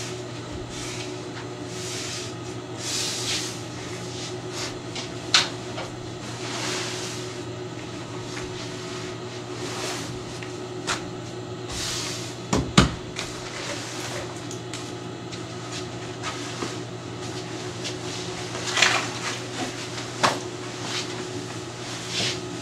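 Drapery fabric rustling and swishing as it is smoothed and folded by hand on a worktable, broken by a few sharp knocks and taps, the loudest about 13 seconds in. A steady low hum runs underneath.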